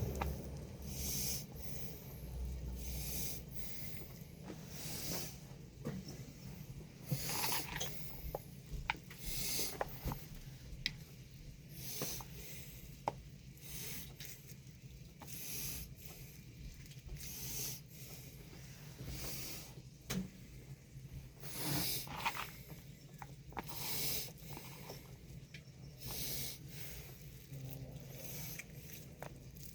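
Hands rolling raw ground meat into meatballs: soft squishing, rubbing noises repeating every second or two, with a few sharp clicks and a steady low hum underneath.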